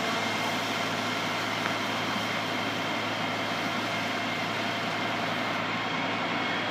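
Fire engine's engine and pump running steadily as a constant low drone, under an even hiss of a fire hose spraying water onto a burning car.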